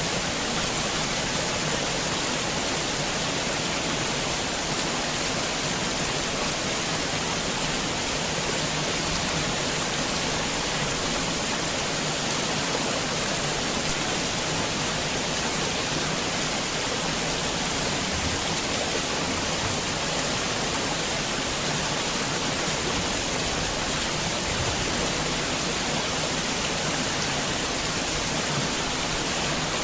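Heavy rain falling in a steady, even downpour, with no single drops or thunder standing out.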